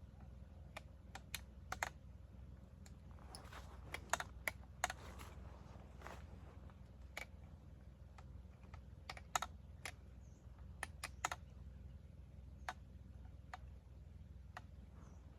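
Scattered sharp clicks and knocks of PKM machine gun parts being handled during field-stripping, irregular and in small clusters, over a low steady hum.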